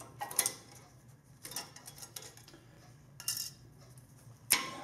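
Worn rear disc brake pads of a 2012 Toyota Sequoia being worked out of the caliper bracket by hand: a few short metallic clinks and scrapes of the steel pad backing plates against the bracket. The last clink, near the end, is the sharpest and loudest.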